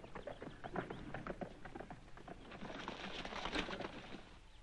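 Horse hooves thudding irregularly on turf, many soft knocks mixed with rustling, thickest about three seconds in and dying away near the end.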